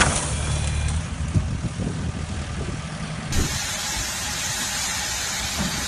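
Vehicle engine running with a low hum, with scattered knocks and rattles. About three seconds in, the audio cuts to a steady outdoor noise.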